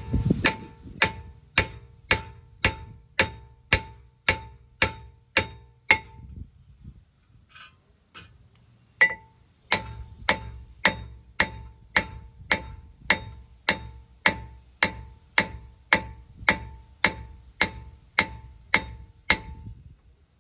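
A hammer strikes a rust-seized front brake rotor on a 2016 Kia Sorento, about two blows a second. Each blow rings with a metallic tone, as the rotor is knocked loose from the layer of rust that holds it to the hub. The blows pause for about three seconds partway through, then resume.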